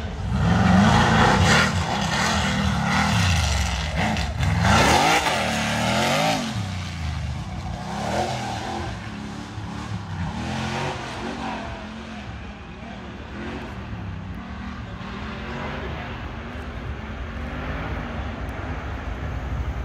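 Off-road race vehicle's engine revving hard, its pitch swinging up and down over the first six seconds or so, then running quieter and wavering for the rest.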